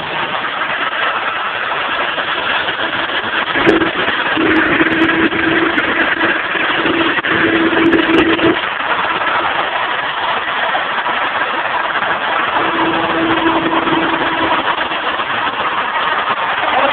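Electric drill running, spinning a propeller cut from a plastic soda bottle to blow air onto barbecue charcoal: a steady rushing whir, with a held motor hum from about 4 to 8 seconds in and again around 13 seconds.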